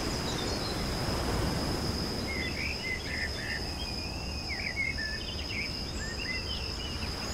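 Outdoor nature ambience: a steady high insect drone, with a run of short bird chirps from about two to six seconds in, over a steady low noise.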